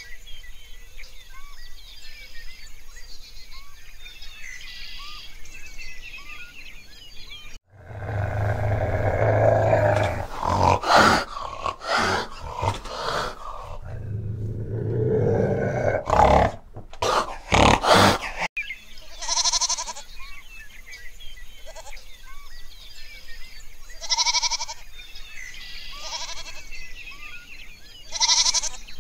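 Animal calls. Faint bird chirping at first, then after a sudden cut about a quarter of the way in, a loud, deep call with grunting pulses that lasts around ten seconds. In the last third come several short, separate calls a couple of seconds apart.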